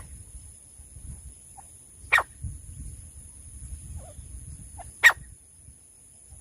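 Francolin giving single sharp, harsh call notes: three loud ones about two to three seconds apart, with a few faint, lower notes between them.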